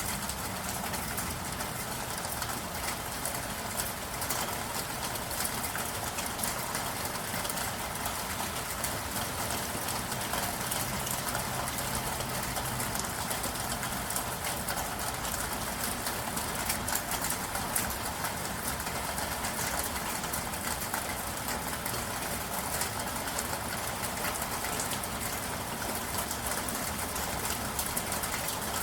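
Steady rain falling, a continuous hiss of rainfall dotted with the ticks of individual drops.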